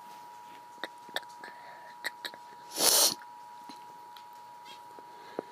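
Emergency Alert System attention signal: two steady tones sounding together without a break. About three seconds in there is a short, loud burst of noise, with a few faint clicks scattered around it.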